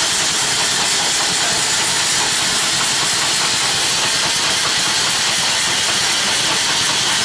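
Small single-cylinder double-acting steam engine (2 HP, 2-inch bore by 3-inch stroke) running, with a loud, steady hiss of escaping steam.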